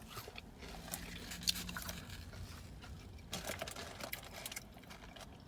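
Chewing and biting into a sandwich, with soft, scattered mouth clicks and smacks.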